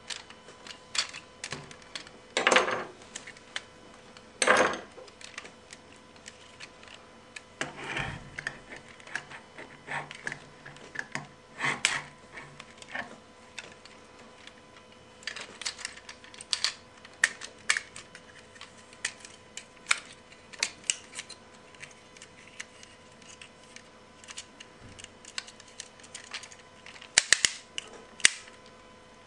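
Plastic parts of a Transformers Sixshot toy clicking and clacking irregularly as it is transformed by hand, with two louder clatters a few seconds in and another burst of clicks near the end.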